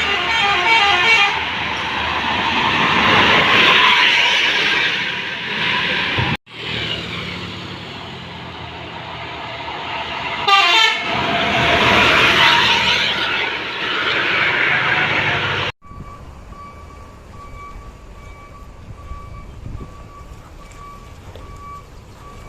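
A bus's 'telolet' horn, a set of musical multi-tone horns, plays quick runs of stepping notes twice over loud vehicle noise. The sound breaks off abruptly twice. After the second break it drops to a quieter background with an intermittent steady beeping tone.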